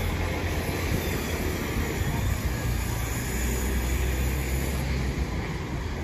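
Steady low rumble of vehicle traffic, with a general street hum above it.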